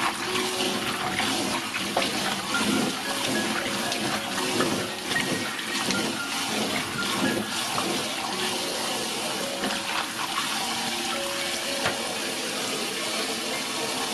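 Tap water running into a stainless steel bowl of water while hands swish and rub wasabi stems to wash them.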